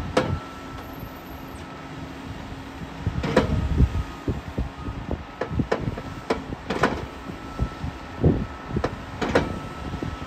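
Wheel loader tipping silage from its grab bucket into a Peecon feed mixer wagon: machinery running, with irregular knocks and thuds as the load drops in, over a faint steady whine.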